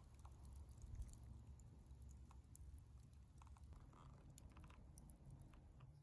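Faint, scattered crackles and pops from campfire embers under a whole chicken roasting on a wooden spit, over a low steady rumble.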